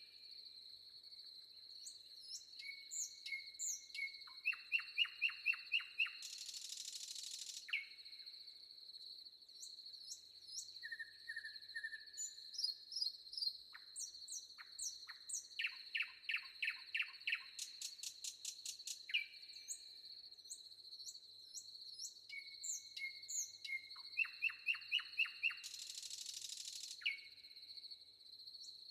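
Forest birds singing and calling over a steady high-pitched insect drone, with many short chirps, whistled notes and quick trills. A song with a held note followed by a fast run of notes comes twice. A brief rush of hissing noise sounds twice, near the start and near the end.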